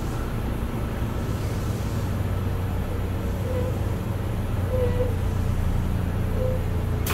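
Steady low hum of a Keio 8000 series electric train car's onboard equipment, heard from inside the car while it stands still at a station with the doors shut.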